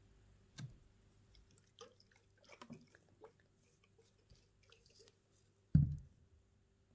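A lidded glass jar of water and washing-up liquid being swirled by hand: a knock near the start, then faint sloshing and small clicks of hands and lid on the glass. About six seconds in comes a heavy thump as the jar is set down on the table.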